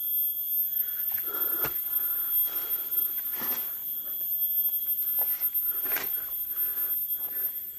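A person breathing hard through the mouth while climbing, a puff of breath about once a second, with two sharp clicks.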